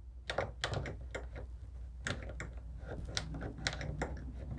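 An old table saw's electric motor humming without starting, with irregular sharp clicks and crackles several times a second. The owner sees sparks inside it, a sign the motor is failing.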